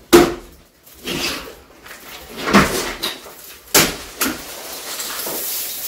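Plastic ceiling panels being pried loose and pulled down: a run of sharp cracks and knocks, the loudest right at the start, then a scraping rustle near the end as a long panel slides free.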